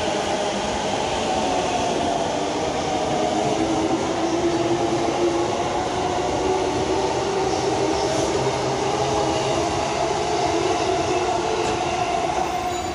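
JR East E233 series electric commuter train pulling out of the platform, its traction motors giving a steady whine of several tones over the rumble of wheels on rail.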